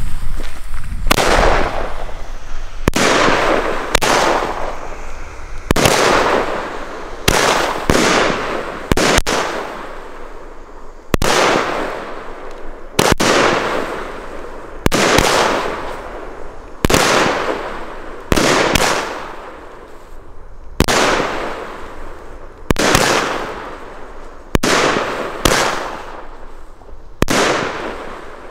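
A consumer fireworks battery (cake) firing shot after shot, about seventeen in all, irregularly one to two seconds apart. Each shot is a sharp bang followed by about a second of fading crackle as the stars burst.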